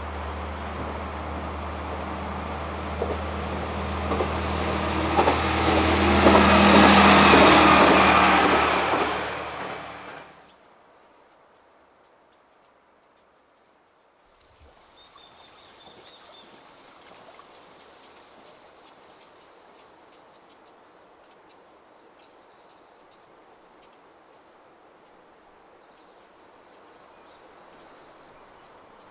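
Diesel railcar of the JR Sankō Line (KiHa 120) running, its engine drone growing louder to a peak about seven seconds in, then cut off abruptly about ten seconds in. After that, a faint quiet countryside ambience with a steady high tone and a few bird chirps.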